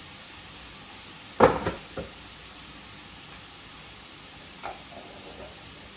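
Bell pepper, celery and onion sautéing in a pan with a steady sizzle. A sharp knock sounds about one and a half seconds in, with a lighter one half a second later.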